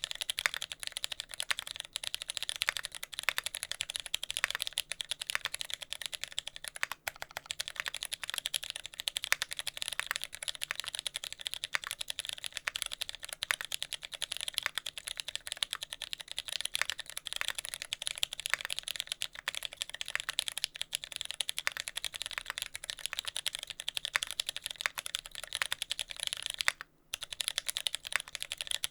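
Continuous fast typing on a TX65 mechanical keyboard with lubed Cherry MX Brown tactile switches in a brass plate, GMK keycaps and no sound dampening: a dense run of key clicks and bottom-outs, with a brief pause about 27 seconds in. The switches' tactile bumps are left unlubed, which the uploader says gives a faint scratchy noise like contact-leaf noise.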